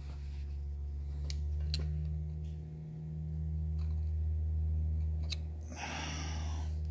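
A few light metallic clicks as a screwdriver tip works against a rocker arm and pushrod in an aircraft engine's rocker box, trying to line them up. Under them runs a steady low hum, and a short rustle comes near the end.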